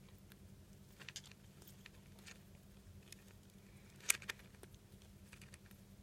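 Pet rex fancy rat making faint small clicks and rustles, scattered and irregular, with a sharper click about four seconds in.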